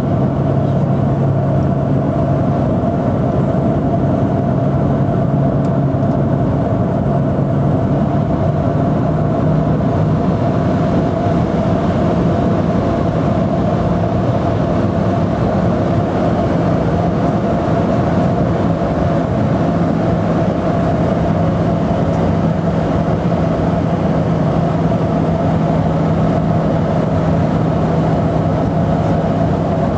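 De Havilland Canada DHC-6 Twin Otter's turboprop engines and propellers droning steadily in cruise, heard inside the cabin as a loud rushing noise with a steady low hum. The hum steps slightly higher in pitch about ten seconds in.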